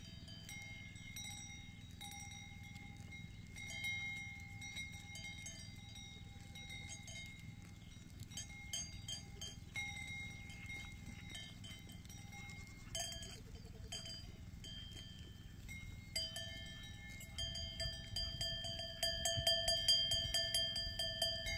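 Small metal livestock bells clinking and ringing over and over as the goats move and graze, the same few ringing tones recurring, busier and louder in the last few seconds.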